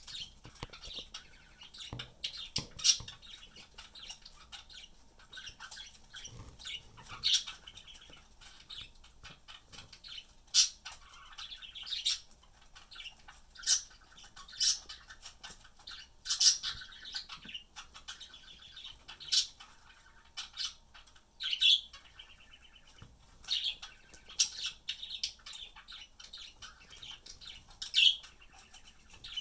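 Eastern gray squirrel scrabbling and burrowing in a terry towel in a cardboard box, drying itself off after a bath: irregular short rustles and scratches, a second or so apart.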